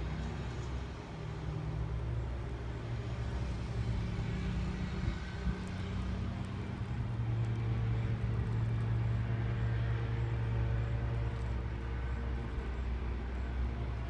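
Steady low mechanical hum of a running motor or engine, holding a few steady tones, a little louder in the second half.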